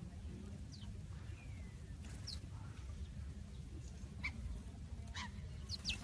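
Sparrows chirping: short, high, falling chirps, a few scattered at first and coming closer together near the end, over a low steady rumble.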